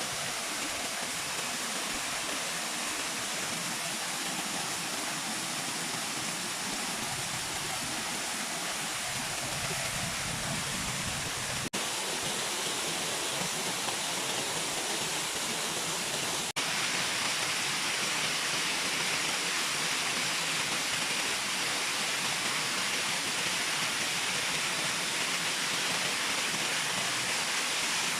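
Brudslöjan waterfall rushing: a steady, even noise of falling water. Twice the sound drops out for an instant, and after the second break it is a little louder.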